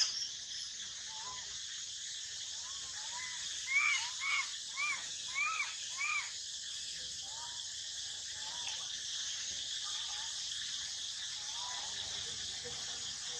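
Young macaque giving a run of five short, rising-and-falling coo calls about four to six seconds in, with fainter single coos scattered before and after, over a steady drone of crickets. A brief sharp sound comes right at the very start.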